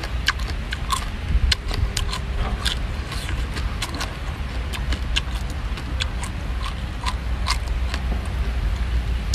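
Small whole marinated crabs being chewed shell and all: irregular sharp crunches and crackles of the shells breaking, over a steady low rumble.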